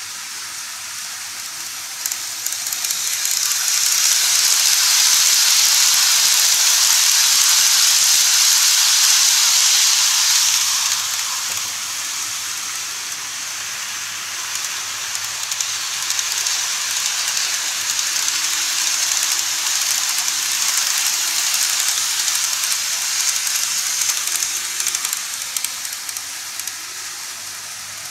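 KATO model trains running on the layout track: a steady hiss of wheels and motors that swells about three seconds in and stays loud for several seconds as a train passes close, eases off, then rises again in the second half as another train comes on.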